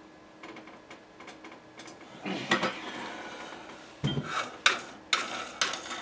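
Metal clanks and clicks from an AR-15 rifle and tools being handled and set in a bench vise to remove the barrel: a clatter about two seconds in, then a dull knock and a few sharp clicks and knocks over the last two seconds.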